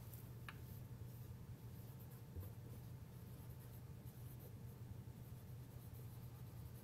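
Dry-erase marker writing on a whiteboard: faint strokes and squeaks over a low steady hum.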